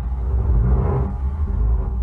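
Stock underwater ambience sound effect: a deep, steady rumble with a whooshing swell that peaks about a second in.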